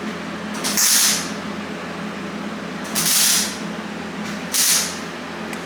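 Three short hissing sprays, about a second in, around three seconds and shortly before five seconds: acid metal prep being sprayed from a spray bottle onto the bare steel hood. A steady low hum runs underneath.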